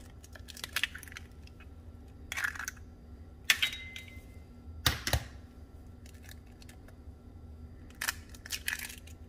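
Two raw eggs being cracked open by hand over a glass mixing bowl: a scattering of short, sharp shell cracks and clicks several seconds apart, the loudest about five seconds in.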